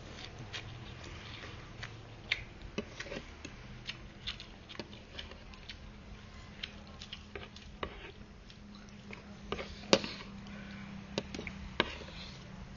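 Someone eating noodle soup: chewing, with irregular short clicks and taps, the sharpest about ten seconds in.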